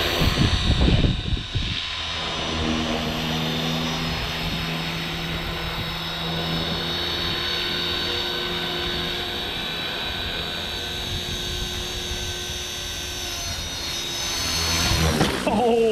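Walkera V450D03 electric RC helicopter flying: steady whine of the brushless motor and main rotor, with a louder rushing surge about a second in. Near the end the pitch falls quickly as the rotor spools down.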